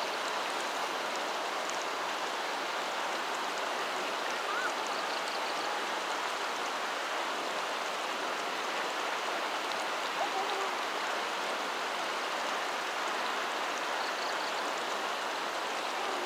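Steady rushing water noise, even and unbroken, with a couple of faint short chirps about four and ten seconds in.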